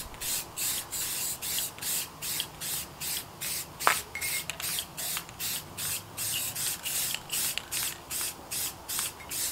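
Aerosol spray-paint cans spraying in short, quick hissing bursts, about three a second, onto light fixture parts. A single sharp click about four seconds in.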